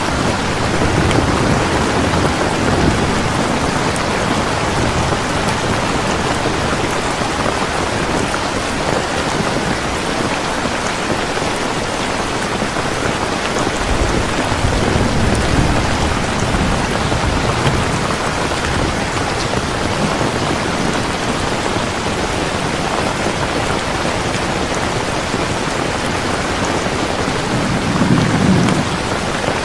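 Heavy rain falling steadily, with low rolls of thunder rumbling three times: near the start, around the middle and near the end.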